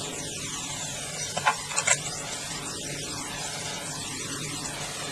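A few small sharp clicks about a second and a half in, as hairpins are set into a pinned-up hairstyle, over a steady background hiss.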